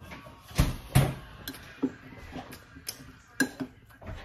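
Metal spoon clinking and scraping against a ceramic bowl while eating, a string of light clicks about every half second, with two louder knocks about half a second and a second in.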